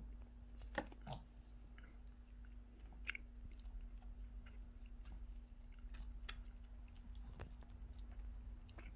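A person biting and chewing a crunchy almond cookie close to the microphone: faint, scattered crunches and clicks over a low steady hum.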